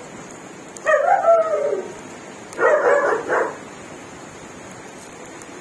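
Two animal calls: a longer one about a second in that falls in pitch, and a shorter, choppier one near three seconds in.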